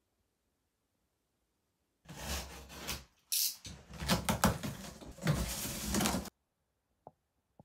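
A large cardboard shipping box being pulled open by hand: packing tape along the top seam comes away and the stiff flaps scrape, crackle and fold back, with many sharp clicks. It starts about two seconds in, stops suddenly after about four seconds, and two small ticks follow near the end.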